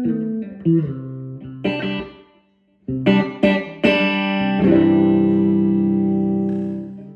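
Electric guitar played through a boutique tube guitar amplifier: a few single notes, a short pause, three quick chord strikes, then a final chord left to ring and fade out.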